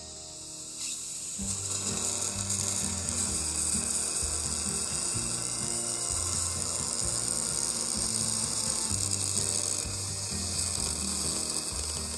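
Surgical implant motor's contra-angle handpiece running at low speed, threading a dental implant into the upper jaw bone: a steady mechanical whir that starts about a second in.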